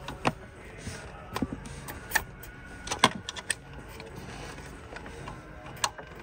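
Irregular sharp clicks and knocks of hand tools and engine parts being handled, about a dozen in all, the loudest about three seconds in.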